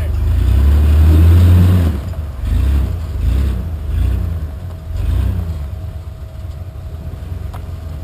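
Rock crawler buggy's engine revving under load as it climbs a steep rock ledge. It is loudest over the first two seconds, then gives several shorter bursts of throttle about a second apart, which ease off after about six seconds.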